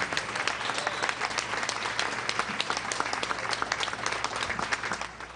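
An audience applauding, with dense, many-handed clapping that fades away near the end.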